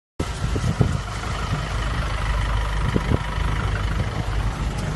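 A vehicle engine running steadily with a low rumble and a few light knocks, starting abruptly after a brief moment of dead silence.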